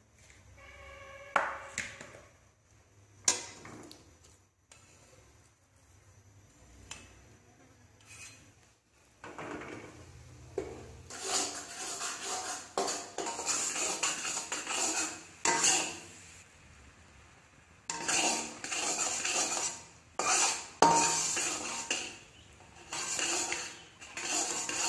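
A metal spoon, then a metal spatula, clinking and scraping against an aluminium wok while stirring lumps of dark sugar as they melt into a bubbling syrup. There are a couple of sharp single clinks in the first few seconds, then busy, steady scraping through the second half.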